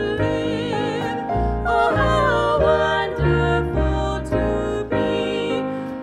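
Women's voices singing together in harmony, holding notes with vibrato, accompanied by piano and upright double bass.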